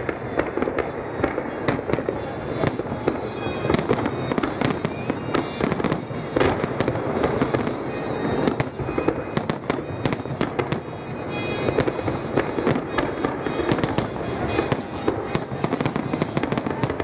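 Aerial fireworks shells bursting in a dense barrage, several sharp bangs a second over a continuous rumble of overlapping blasts.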